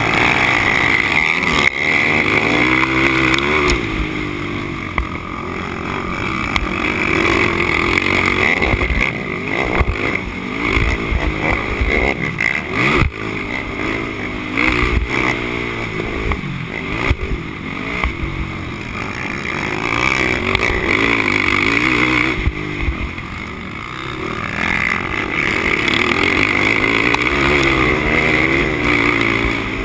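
Honda TRX450R quad's single-cylinder four-stroke engine racing at full throttle, its revs rising and falling every second or two as the rider accelerates, shifts and backs off through the turns, with wind rushing over the microphone.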